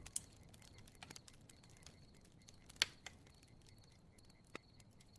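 A campfire crackling quietly, with scattered small pops. The loudest pop comes just before the middle and another follows about a second and a half later. A faint, thin, steady high tone sits underneath.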